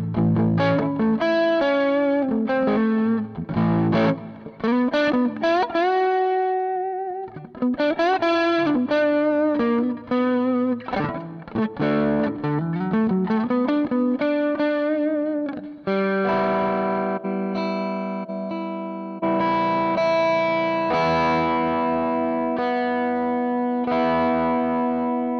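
Electric guitar played through a Zoom G1 Four multi-effects processor with a light overdrive, a crunch tone: bluesy single-note licks with string bends, then chords left ringing from about two thirds of the way through.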